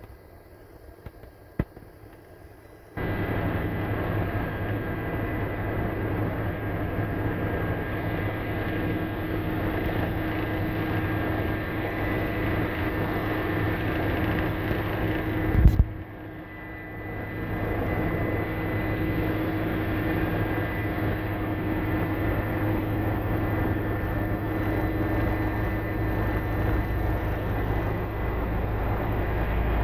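Helicopter's rotor and turbine heard from inside the cabin, a steady loud drone with a low hum, cutting in suddenly about three seconds in as it descends to land. A brief loud knock past the middle is followed by a short dip before the drone builds back.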